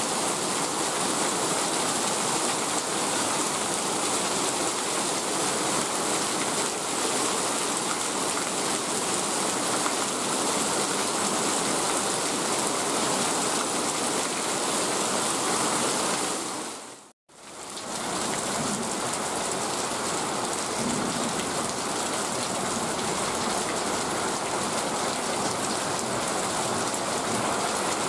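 Heavy rain pouring down steadily. The sound drops out for a moment about two-thirds of the way in, then returns.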